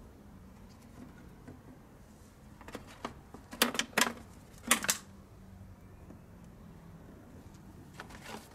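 Plastic bottles and their return hoses being handled: a cluster of sharp plastic clicks and knocks about three to five seconds in, and a few softer taps near the end, as the injector return-flow test bottles are taken off and set down on the plastic engine cover.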